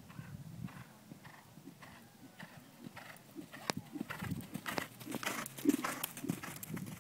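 Horse's hoofbeats on arena sand under a rider, a run of dull thuds that gets louder as the horse approaches and passes close by about five to six seconds in.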